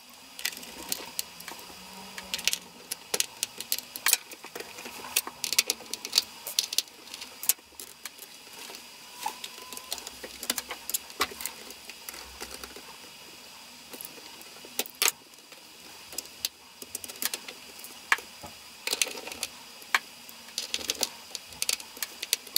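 Irregular small metallic clicks, taps and rattles of hand tools and a laptop's metal hinge being handled and adjusted.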